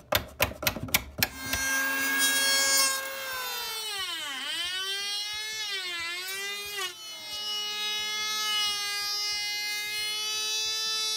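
A few sharp metallic clicks and knocks from door-hinge hardware, then a DrillMaster 3-1/4 inch electric hand planer starts up and runs with a steady high whine. Twice its pitch sags and climbs back as the cutter head bites into the wooden door edge under load, then it runs on steadily.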